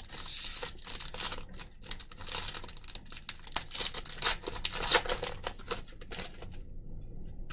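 Foil wrapper of a Score football card pack being torn open and crinkled: a dense crackle of many sharp rustles that stops about six and a half seconds in.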